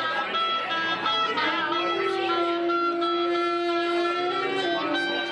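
Alto saxophone blown by a young child, sounding one long note held steady for about two and a half seconds, starting a little over a second in.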